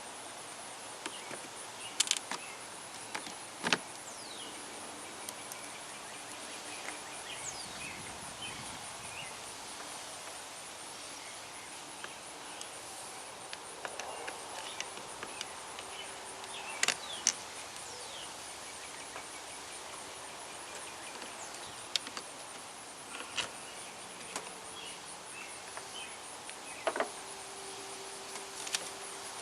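Occasional sharp clicks and snaps as a flathead screwdriver pries plastic trim tabs loose, over a steady outdoor background hiss.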